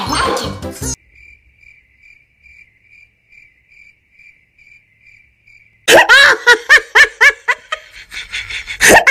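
Faint cricket chirping, about three chirps a second: the 'awkward silence' crickets effect. About six seconds in it gives way to loud laughter in short repeated bursts.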